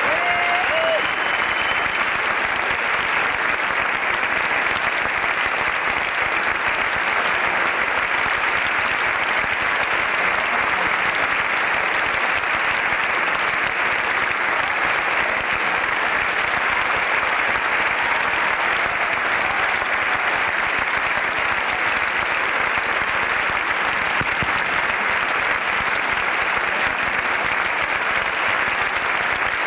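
Theatre audience applauding steadily through a long curtain-call ovation, with a short call from the crowd right at the start.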